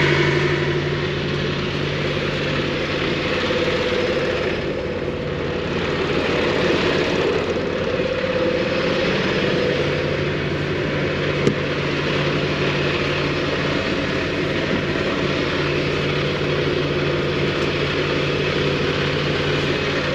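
Semi-truck diesel engine idling steadily, with a single sharp click about halfway through.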